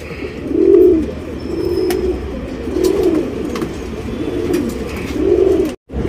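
Domestic pigeon cooing: a series of about five low coos, roughly one a second, cut off suddenly just before the end.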